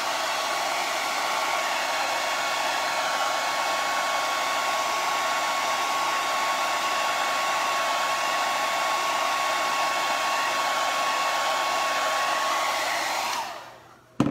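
Handheld hair dryer running steadily, a loud rush of air with a steady whine over it. Near the end it is switched off and winds down, followed by a short knock.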